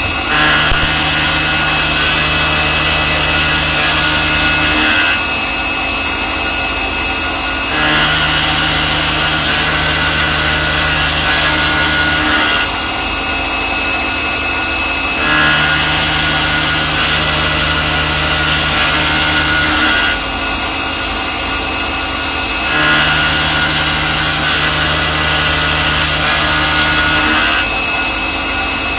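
Mazak Integrex 35 multitasking CNC machine milling, with continuous cutting noise. A steady low hum comes in for about four and a half seconds and drops out for about three, in a regular cycle repeating four times.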